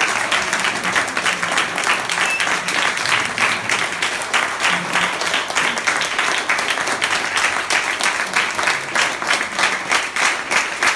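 Crowd applauding steadily, with dense overlapping claps and some sharp ones close by.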